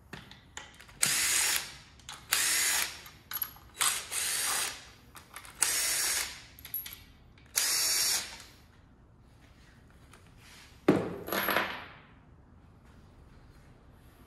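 Cordless power driver running in the bolts of a new Holley oil pan on an LT4 V8, in five short runs of about half a second to a second each. A sharp knock with a short rattle about eleven seconds in.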